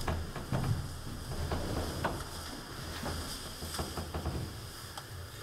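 Footsteps and shuffling on a stone floor in a reverberant church: scattered, irregular soft knocks and clicks over a low steady rumble.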